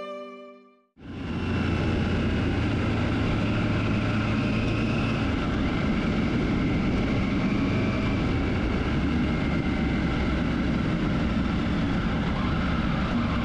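Triumph Tiger motorcycle being ridden along a road: steady engine and road noise picked up by a camera mounted low on the bike. It comes in about a second in, just after fading violin music ends.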